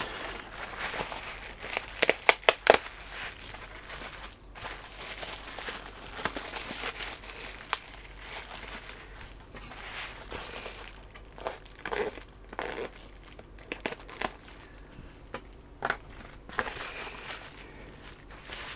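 Bubble wrap being handled and unwrapped, crinkling and rustling throughout. A quick run of sharp crackles comes about two seconds in.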